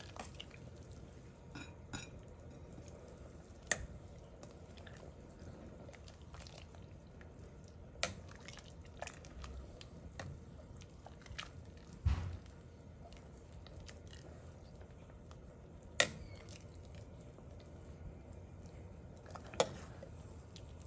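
A metal ladle stirring soup in a stainless steel pot, clinking against the pot now and then with faint sloshing of broth. There is a dull thump about twelve seconds in.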